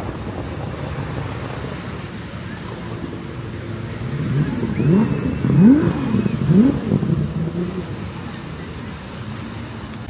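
A passing motor vehicle accelerating, its engine climbing in pitch three times in quick succession as it shifts up through the gears, loudest about five to six seconds in, over a steady background of street noise.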